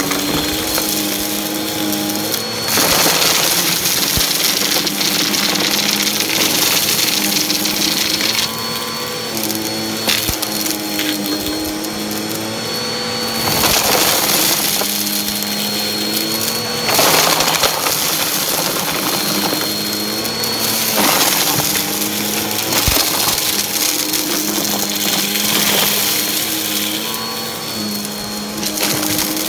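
Bissell upright vacuum running while sucking up a pile of fluffy debris full of small hard bits. Its motor tone steps up and down as the nozzle loads and clears, with scattered crunches of grit going through.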